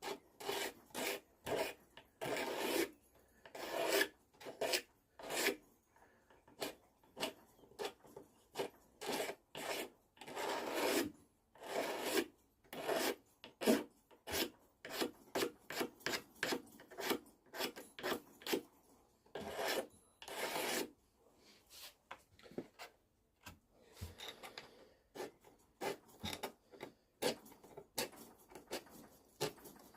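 A utility-knife blade scraping the old finish and grime off a wooden hammer handle in short, irregular strokes, roughly one to three a second, with a few longer drawn strokes.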